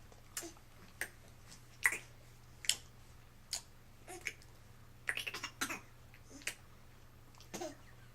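A pet making a series of short clicking, smacking sounds with its mouth, irregular and sometimes in quick clusters.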